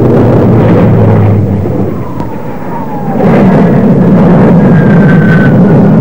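Loud jet noise from a formation of Hawker Sea Hawk fighters' Rolls-Royce Nene turbojets passing low, a rumbling roar with a high whine that slides slowly down in pitch as they go by. The noise eases a couple of seconds in, then swells again at about three seconds.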